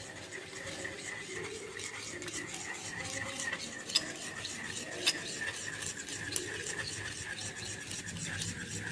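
Glass rod stirring the warm emulsion of melted beeswax and mineral oil with borax in rose water in a porcelain dish, forming a cold cream. It scrapes and swirls steadily, and the rod ticks sharply against the porcelain three times in the middle.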